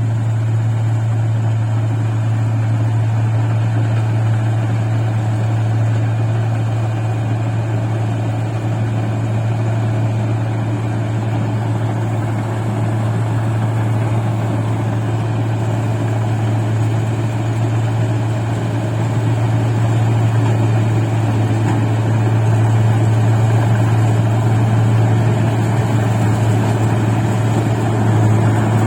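Rice combine harvester's diesel engine running steadily, a constant low drone with machinery noise over it.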